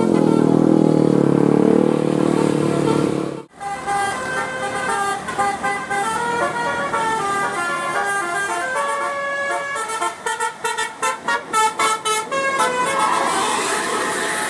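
Bus 'telolet basuri' musical air horn: a loud low chord, then after a brief break a tune of stepped notes that ends in a quick stuttering run of short blasts.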